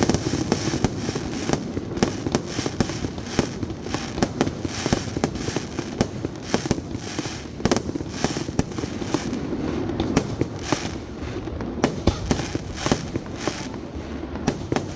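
Aerial fireworks bursting in rapid succession: a continuous barrage of sharp bangs and crackles, several each second.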